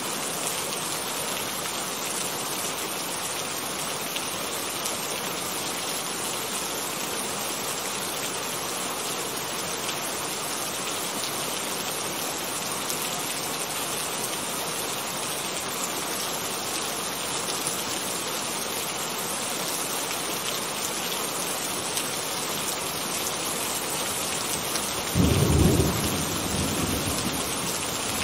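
Steady heavy rain, with a sudden clap of thunder near the end that rumbles away over a couple of seconds.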